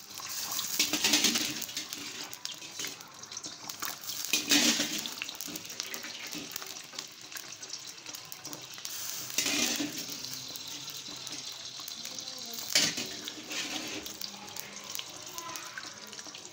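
Pieces of boiled beef sizzling as they fry in hot oil in a steel pot, with a steady hiss and four louder flares of spitting as more pieces go into the oil.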